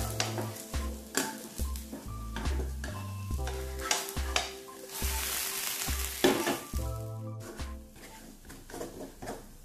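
A grated-potato rösti sizzling in hot oil in a wok, with a spatula scraping and knocking against the pan as the pancake is loosened and flipped. The sizzle swells about five to six seconds in. Background music with a steady bass beat runs underneath.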